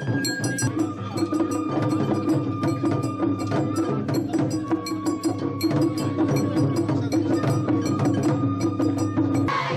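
Japanese festival hayashi: a bamboo transverse flute plays long held notes over fast, steady taiko drumming and sharp metallic strikes, typical of the small hand gong used in festival music. A group shout starts just before the end.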